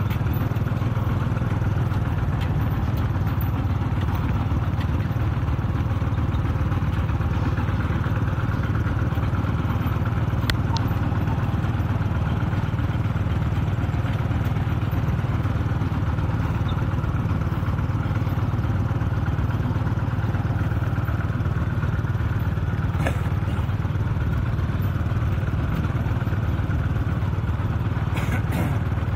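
Steady drone of a Kubota RT-120 Plus single-cylinder diesel two-wheel tractor pulling a loaded trailer along a rough dirt track, heard from close behind.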